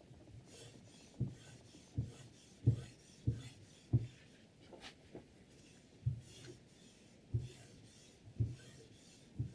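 Sharpening stone of a KLODCHIK guided knife-sharpening system stroked back and forth along a chef knife's edge: a faint scraping hiss with a short low knock at each stroke, about one to two a second, pausing briefly in the middle.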